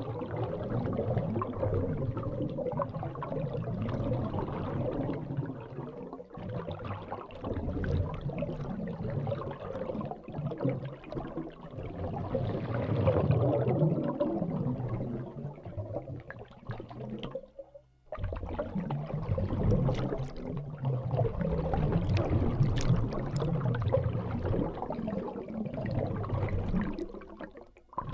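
Liquid being poured with a steady bubbling, gurgling sound. It fades and stops about 18 seconds in, then a second pour starts and runs on until near the end.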